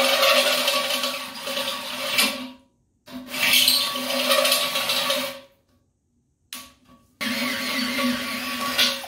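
Electric drill running in three bursts of a couple of seconds each, stopping in between, as the bit cuts a hole through the metal wall of a brew kettle.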